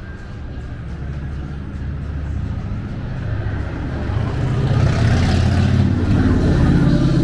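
Road vehicle engine rumbling by on the street, growing louder about halfway through as it draws near.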